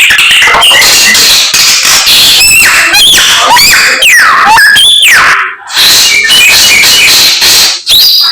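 Samyong songbird singing loudly without a break: a rapid string of varied whistled notes, with several long sweeps falling and then rising in pitch, and short pauses between the runs.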